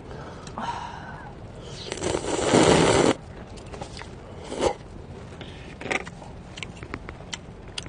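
People eating noodles with chopsticks: one loud rushing mouth sound about two seconds in that lasts just over a second, two shorter ones a little later, and scattered light clicks of chopsticks and dishes.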